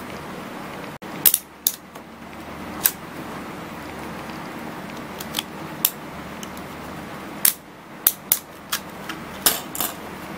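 Sharp plastic clicks and taps, about a dozen at irregular spacing, from a Braun MGK3060 trimmer body being handled and a comb attachment being clipped onto its head, mostly in the last few seconds. A steady low hum runs underneath.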